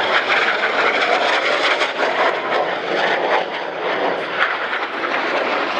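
A display aircraft's engine noise, loud and steady, as an aircraft flies over.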